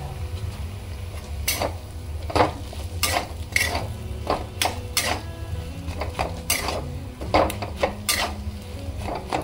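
A flat metal spatula scraping and clinking against a metal kadhai as dry spiced potato filling is stirred and fried, in irregular strokes over a steady low hum.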